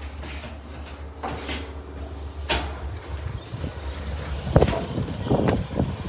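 A door opened by its knob, with a sharp click about two and a half seconds in, then footsteps and rustling papers, over a steady low hum.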